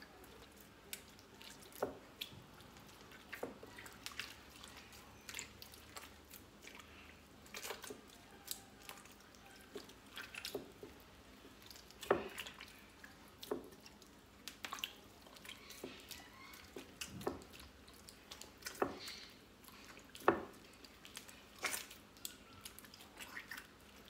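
Hands kneading and squeezing soft butter in water in a glazed clay dish: irregular small squelches, drips and splashes. The butter is being washed to press out its buttermilk, a step repeated until the water stops turning white.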